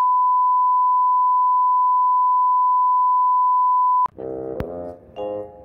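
Steady test-pattern reference beep, one unbroken pure tone, the kind played under television colour bars; it cuts off abruptly about four seconds in and instrumental music with bell-like notes begins.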